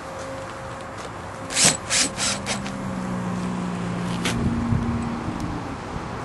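Cordless drill driving self-tapping screws through a stainless-steel template into a plastic bumper cover: four quick trigger bursts about one and a half to two and a half seconds in, then a steady low motor hum for a couple of seconds with a single click.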